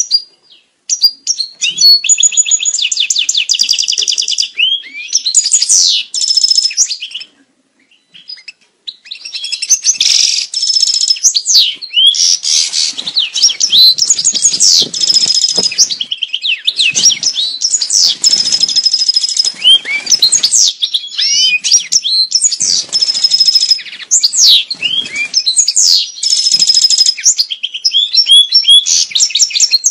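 European goldfinch song: long runs of rapid, twittering trills and buzzy notes, broken by one short pause about eight seconds in. It is the breeding-season song used to bring caged goldfinches into mating condition.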